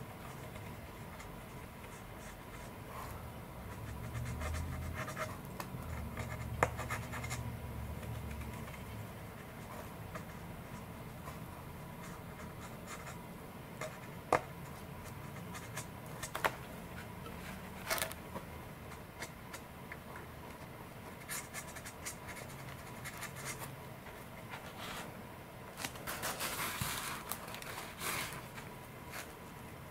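Faint scratching and small clicks of a cotton swab rubbing wax onto a carbon fibre fuselage around a connector, with light taps as the parts are handled and a short rustle near the end as the wing is moved.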